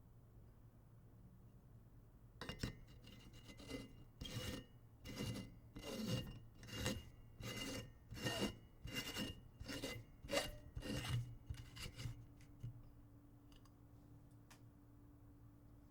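A light bulb being twisted in its socket: about a dozen gritty scraping turns of the metal screw base against the socket threads, with a faint glassy ring on each turn.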